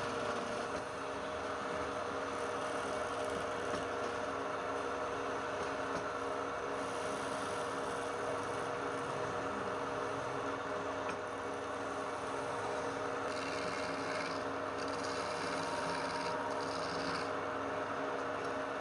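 Wood lathe running with a steady motor hum while a tool rubs and scrapes against the spinning wood. A brighter hiss comes and goes a few times near the end.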